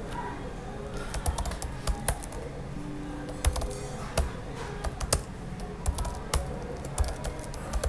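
Typing on a computer keyboard: irregular key clicks in short runs, with small pauses between them.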